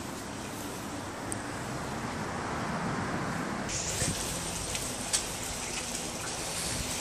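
Steady outdoor background noise with a low rumble, heard through a phone microphone carried while walking. A high hiss comes in about halfway, and there are a few sharp knocks, the loudest about five seconds in.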